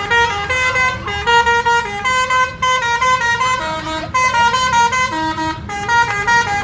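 A bus's multi-tone 'telolet' musical air horn playing a tune of stepped notes, with a few short breaks, over a low rumble.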